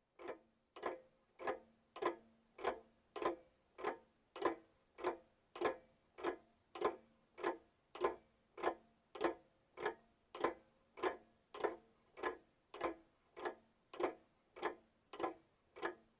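A clock ticking steadily, a little under two ticks a second.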